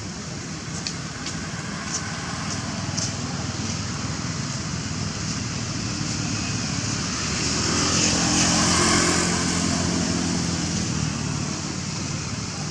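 Engine of a passing vehicle swells to a peak about eight seconds in and fades, over a steady background rumble.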